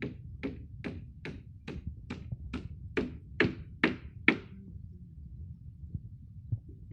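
Hammering at a construction site: a steady run of about eleven sharp strikes, a little over two a second, growing louder, stopping a little after four seconds in.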